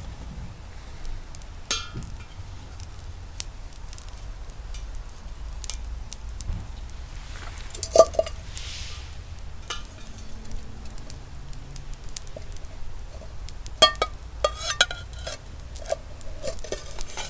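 Metal camping pot and cookware being handled, with scattered clinks and knocks. One loud ringing clank comes about 8 seconds in, and a quick run of clinks follows near the end.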